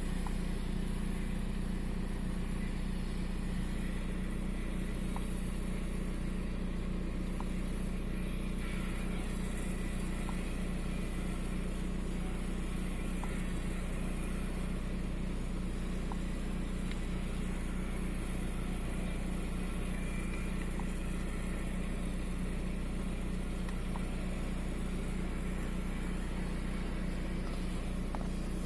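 VW 1.9 TDI (AXR) four-cylinder turbodiesel idling steadily. The engine shakes at idle, which the owner puts down to an intermittent cylinder 4 misfire (fault 16688 / P0304).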